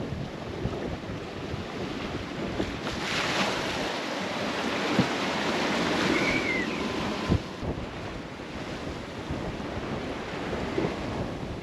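Wind and breaking waves rushing around a small sailboat in rough seas, with wind buffeting the microphone. A couple of short knocks and a brief high squeak about six seconds in.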